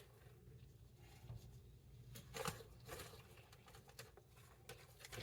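Near silence, with a few faint soft rustles of spinach and kale leaves being dropped into a bowl, the clearest about halfway through.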